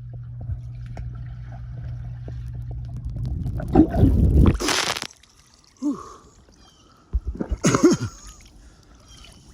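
Pool water splashing and gurgling as a person works underwater on the liner and comes up, in two loud bursts about four and seven and a half seconds in. Before them, a steady low hum.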